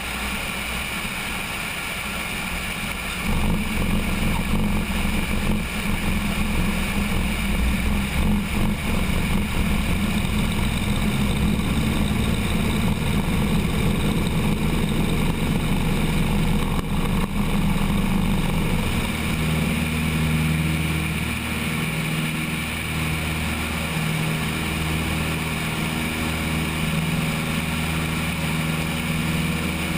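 Cessna 172's piston engine and propeller going to full takeoff power about three seconds in, steady and loud, mixed with wind and a rumbling rattle on the wing-mounted camera during the takeoff roll. A little past halfway the low rumble changes and the sound eases slightly as the plane lifts off and climbs.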